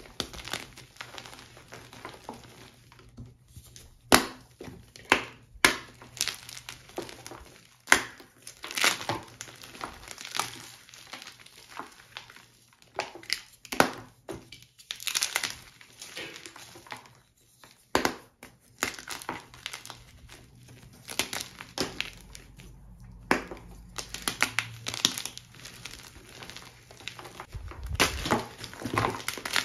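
Blocks of plain gym chalk crushed and crumbled by hand: irregular crunchy, gritty crumbling, with a few sharp snaps as pieces break.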